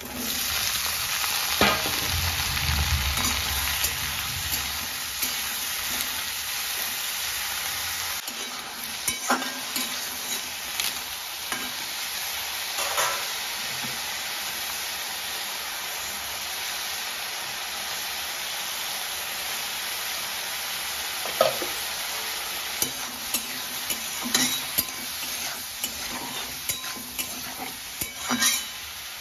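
Cubed eggplant dropped into hot oil in a steel wok, sizzling at once, loudest in the first few seconds, then frying with a steady hiss. Now and then a spatula clacks and scrapes against the wok as the pieces are stirred, most often near the end.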